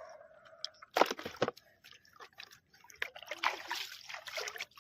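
Water splashing and sloshing: a short, loud splash about a second in, then a longer stretch of splashing near the end.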